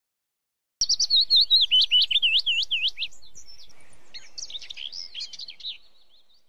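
Birdsong: starting just under a second in, a loud, rapid run of whistled notes, each dipping down and sweeping back up, then softer, busier chirping that fades out near the end.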